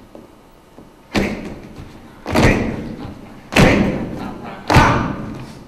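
Four heavy thuds on a wooden stage floor, one about every 1.2 seconds, starting about a second in. Each trails off briefly. The cast in a circle is stomping in unison.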